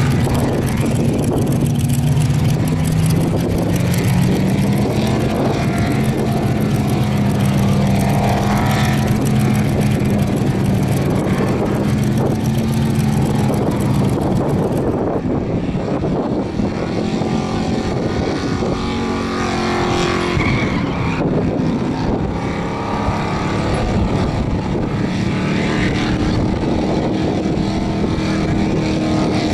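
Holden VK Commodore V8 held at high revs through a sustained burnout, its rear tyres spinning and smoking on the pad. The engine note wavers up and down as the throttle is worked, over a steady rush of tyre noise.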